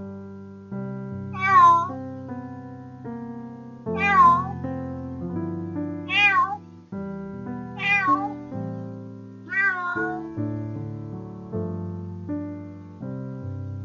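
A cat meowing five times, roughly every two seconds, each call rising and then falling in pitch, over background piano music.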